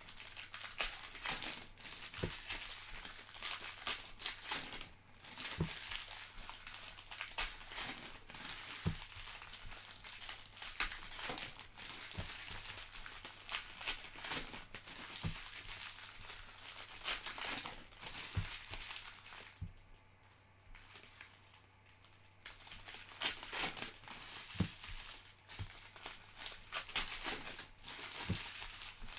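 Packs of Panini Prizm trading cards being torn open by hand, their plastic wrappers crinkling and crumpling with many sharp crackles and rustles, easing off briefly about twenty seconds in.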